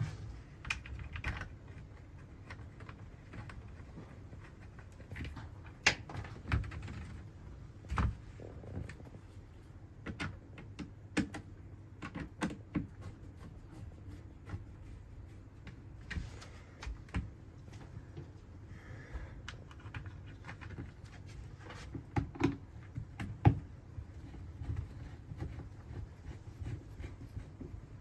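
Irregular light clicks and knocks of plastic and metal parts being handled and fitted as a caravan roof skylight hatch's inner frame is reassembled, with a few sharper knocks about six, eight and twenty-two seconds in.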